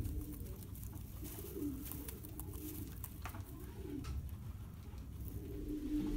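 Several low, wavering cooing calls from an animal, each lasting under a second, with a longer, steadier call near the end, over a few light rustles.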